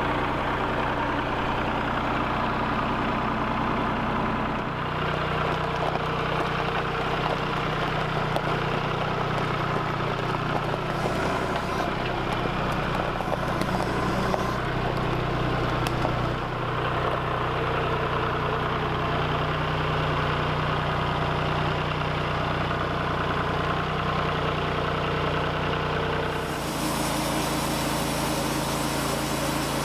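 An engine running steadily, its note shifting a few times: about five seconds in, again past the middle, and near the end.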